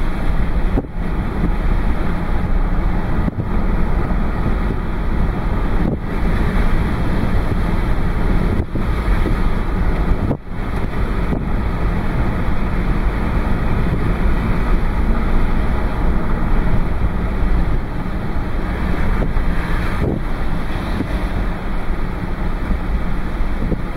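Steady road and engine noise of a car driving along, mixed with wind blowing across the microphone.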